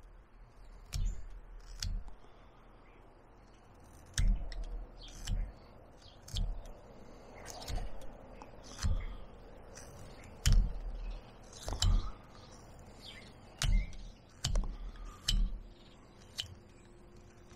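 Carving knife slicing into a wooden dowel: a dozen or so irregular short snaps and clicks as the blade cuts and pops off chips, some with a low thud.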